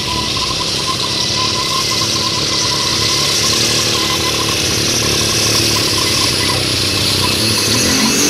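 Super stock pulling tractor's turbocharged diesel engine running at full throttle under load as it drags the weight sled, its rear tyres spinning. The engine noise is loud and steady, with a steady high whine over it.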